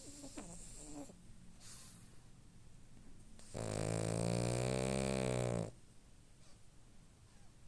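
Snoring: one long, deep snore about halfway through, lasting around two seconds, with quieter breathing sounds around it.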